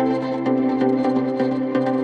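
Background music: steady ambient electronic track with held synth tones and a quick, regular plucked pattern.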